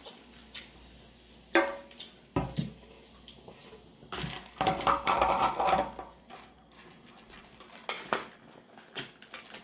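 Eating at the table: scattered sharp clinks and taps of tableware and utensils, the loudest about a second and a half in, with a longer stretch of denser handling and eating noise about four to six seconds in.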